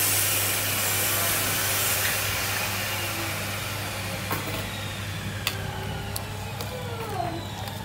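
Hiss of a pot of mango slices simmering in liquid, slowly fading, with a few sharp clicks of metal tongs against the pot as the slices are turned.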